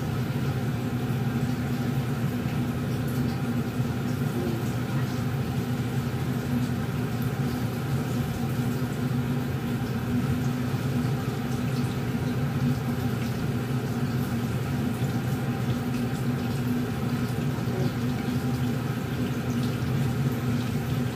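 Kitchen range hood exhaust fan running, a steady hum over an even rush of air.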